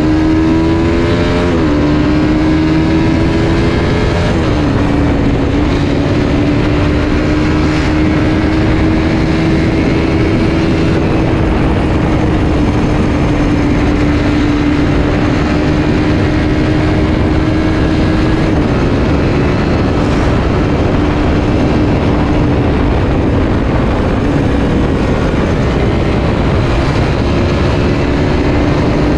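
Suzuki Satria F150 fuel-injected single-cylinder engine running hard under way. The note climbs and drops sharply with two quick upshifts in the first few seconds, then holds a steady high pitch, eases a little past the middle and climbs again near the end, over a steady rushing noise.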